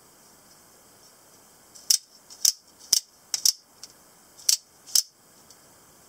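Sharp metallic clicks and snaps from the spring mechanism and lock of a double-edged automatic spring knife being worked, about eight in all, mostly in pairs about half a second apart, starting about two seconds in and stopping about five seconds in.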